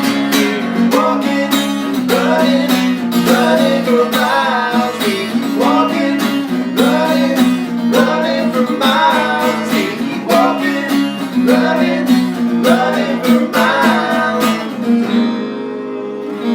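Acoustic guitars strumming a quick, even country rhythm under a lead melody of sliding, bending notes. About fifteen seconds in the strumming stops and a chord is left ringing.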